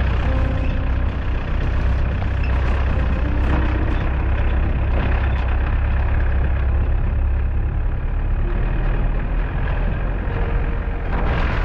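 Wind buffeting the camera's microphone: a steady, heavy low rumble with hiss over it.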